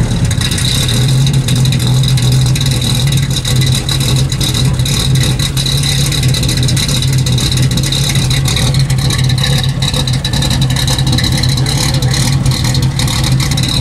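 Duesenberg Model J's straight-eight engine running steadily at a held engine speed, heard at the tailpipe, with a steady high whine over the exhaust note.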